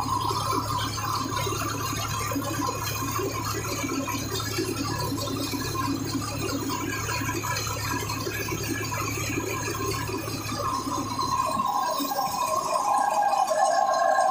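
Tractor-driven mobile rice mill running: a steady low hum with rattling as grain passes through the huller. About twelve seconds in, the low hum drops away and a higher steady whine is left.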